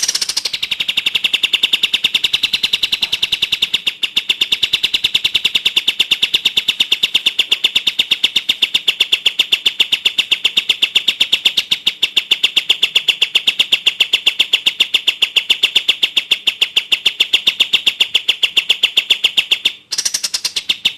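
A songbird calling in a fast, even run of sharp repeated notes at one high pitch, kept up without change, with a short break near the end before it starts again.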